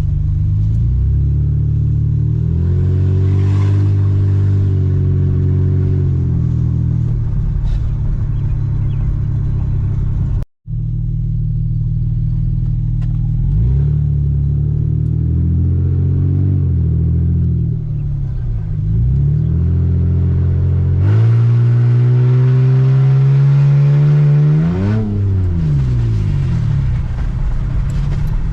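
Lexus GS300's 2JZ inline-six, just fitted with new rod bearings, pulling the car on a drive. The engine pitch climbs under acceleration and falls back at each gear change, with one long climb that drops off sharply near the end. The sound cuts out for a moment about ten seconds in.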